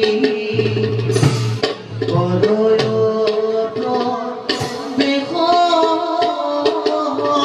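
Bhaona dance music: hand-drum strokes keeping a steady rhythm, a sung melody over them, and cymbal clashes about a second in and again past the four-second mark.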